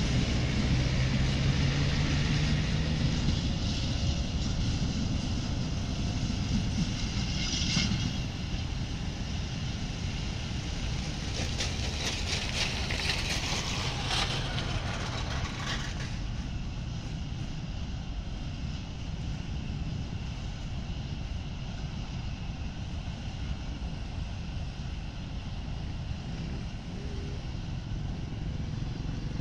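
Phosphate freight train's hopper wagons rolling away on the rails, a steady running noise that slowly fades as the train recedes around a curve.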